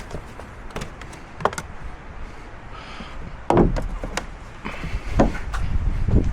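Scattered knocks and clicks of tools and car parts being handled in a workshop, with a louder thump about three and a half seconds in.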